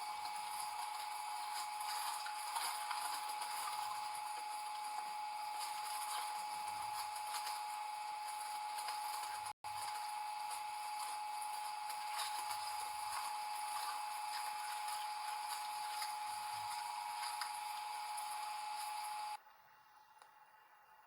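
A machine running with a steady high whine over a hiss, with a brief cut about halfway through; the sound drops away sharply near the end.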